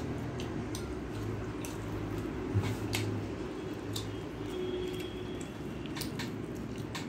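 Small wet mouth sounds of eating by hand: lips smacking and fingers being sucked clean, with scattered faint clicks. A steady low hum runs underneath.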